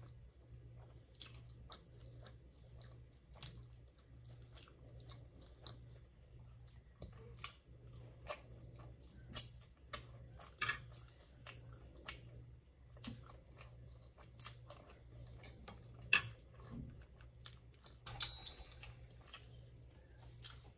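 Close-up chewing of a bite of garlic naan with saag paneer: soft, wet mouth clicks and smacks coming irregularly, a few sharper ones about halfway through and again near the end. A steady low hum runs underneath.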